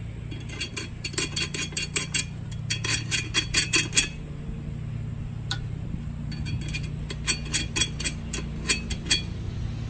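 Screwdriver tip scraping and chipping rust off a wheel rim's bead seat: two runs of quick, sharp metal-on-metal clicks, several a second, with a pause between them.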